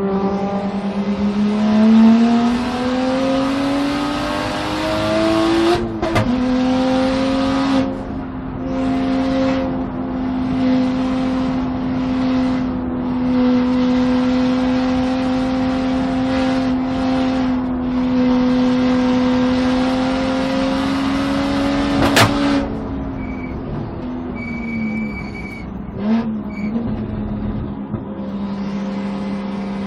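Single-turbo BMW 3-series race car engine pulling hard on track. The engine note climbs, drops in pitch with a gear change about six seconds in, then holds high and steady for about fifteen seconds. It then falls away as the car slows, with a short blip of revs a few seconds later.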